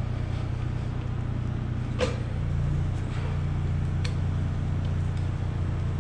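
An engine runs steadily in the background with a low, even drone. About four light metallic clicks come roughly a second apart as a screwdriver works on the compressor motor's end cover. The first click is the loudest.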